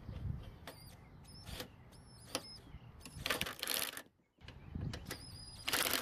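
Cordless power driver with a socket extension tightening the carburetor mounting bolts on a lawn mower engine. A few short trigger blips come first, then two bursts of rapid mechanical clatter, about three seconds in and again near the end.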